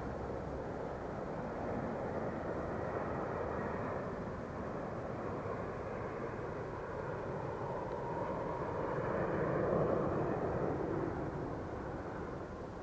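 Steady rumbling vehicle noise that swells to a peak about ten seconds in and then fades, as of something passing by.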